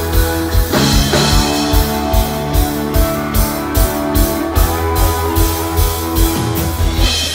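Live band playing an instrumental passage of a pop-rock song: electric guitar and held notes over a drum kit with a steady beat of about two a second.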